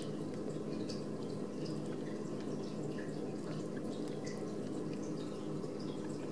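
Newborn Ragdoll kitten suckling and mouthing at its own paw: faint, irregular wet clicks, several a second, over a steady low hum.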